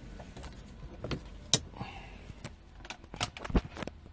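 Handling noise of the camera being taken off its mount inside a car: several sharp clicks and knocks, with a brief rustle about two seconds in.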